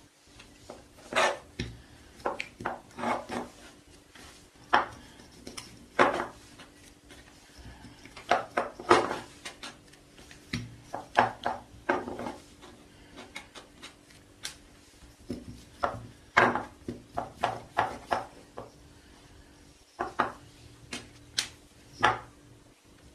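Wooden rolling pin knocking and rolling on a wooden tabletop while modelling dough is rolled out and handled: irregular sharp knocks and clatters, some in quick clusters, with light rubbing between them.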